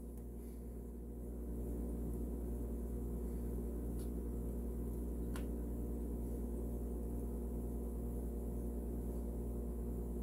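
Steady low hum with a slow, even pulse a few times a second, a little louder from about a second and a half in, with two faint light clicks in the middle.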